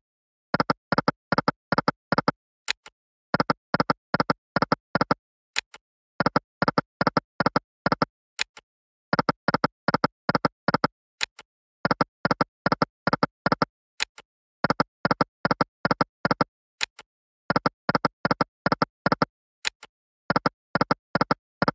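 Video slot game sound effects: each spin ends in a quick run of about five short electronic beeps as the reels stop one after another, repeating about every three seconds, with a single sharp click between runs as the next spin starts.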